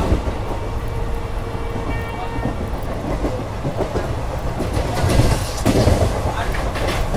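Passenger train coach running at speed, heard from its open doorway: a steady rumble of the wheels on the rails with rapid clickety-clack, louder for a moment about five seconds in.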